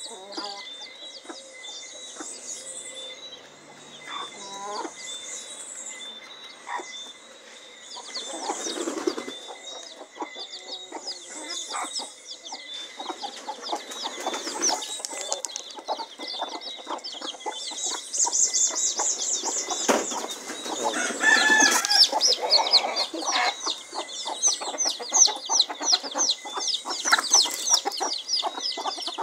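Small chicks peeping over and over while hens cluck as they feed. The peeping grows louder and busier in the second half, with a louder chicken call about three-quarters of the way through.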